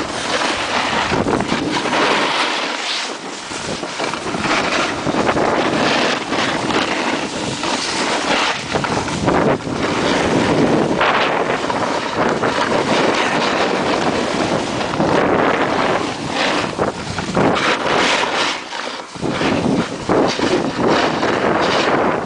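Loud wind rushing over the camera's microphone, surging and easing unevenly, from the speed of a skier going downhill with the camera. It dips briefly a few seconds in and again near the end.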